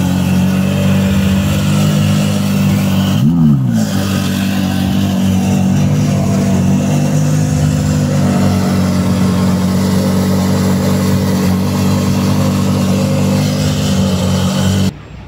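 A car engine running steadily at idle, with a brief sweep in pitch about three and a half seconds in; the sound cuts off suddenly near the end.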